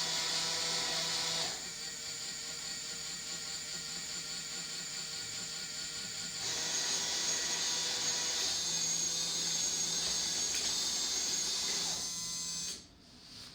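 Small electric motors of a fischertechnik machining line running while a part is machined: a steady whine with several fixed tones that changes abruptly about a second and a half in and again about six seconds in, then stops near the end.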